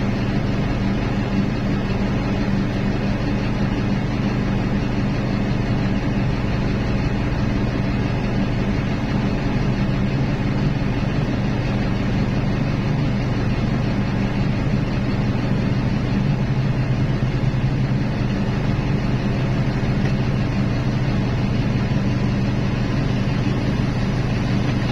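Diesel engines of heavy mining machinery running steadily under load: a continuous deep drone with no breaks or knocks.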